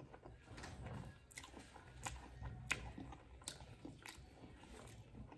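A person slurping and chewing noodles close to the microphone: faint wet mouth sounds with a few short sharp clicks.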